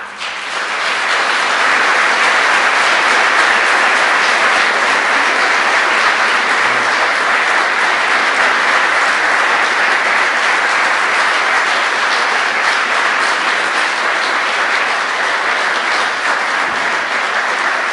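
Audience applauding: a long, steady round of clapping that swells within the first couple of seconds and eases slightly near the end.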